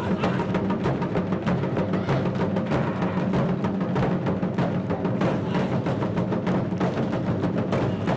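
Japanese taiko drums (wadaiko) played by an ensemble in a fast, unbroken rhythm of dense drum strikes.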